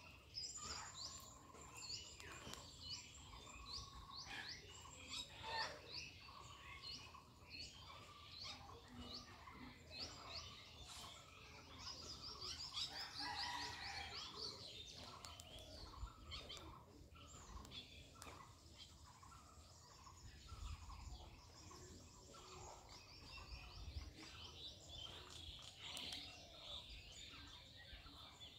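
Faint chirping of small birds: many short, high notes in quick runs.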